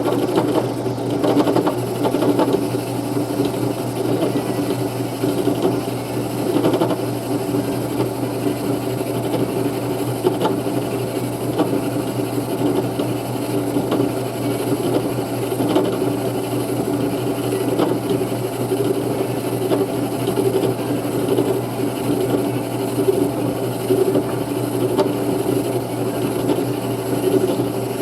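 Small electric lathe running steadily with a tool cutting into spinning wood: a constant motor hum with irregular scraping ticks.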